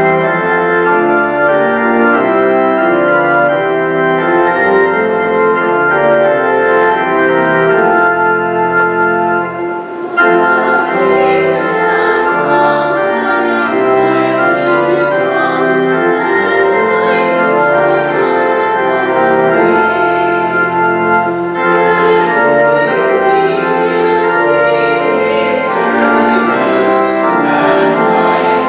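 Church organ playing the closing hymn in sustained chords, with a short break about ten seconds in before it picks up again.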